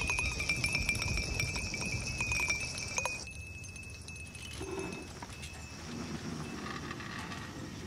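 Glasses clinking and scattered short clicks over a steady high-pitched drone. About three seconds in, all of it drops away sharply to a much quieter background.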